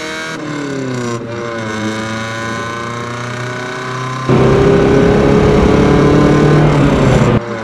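1975 Chevrolet Cosworth Vega's 2.0-litre dual-overhead-cam four-cylinder pulling under acceleration, its revs dropping twice in the first second or so and then holding. About four seconds in the sound turns abruptly much louder and rougher, with the engine note slowly climbing under rush, until it drops back near the end.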